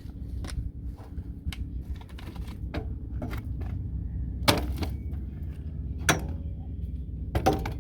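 Scattered clicks and a few sharp knocks of hard objects being handled, the loudest about four and a half, six and seven and a half seconds in, over a low steady rumble.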